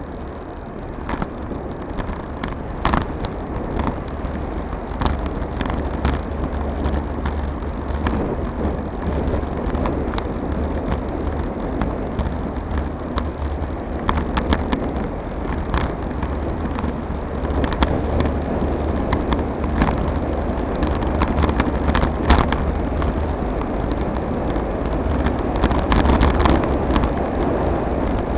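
Wind rushing over an action camera's microphone, with tyre and road rumble, as a road bicycle coasts down a paved road, getting slightly louder as it picks up speed. Scattered sharp clicks and knocks come through over the rumble.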